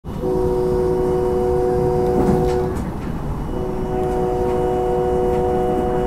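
Multi-note chime horn of a SEPTA Silverliner electric commuter train, heard from inside the lead car: two long blasts with a short gap between them, over the steady rumble of the train running on the rails.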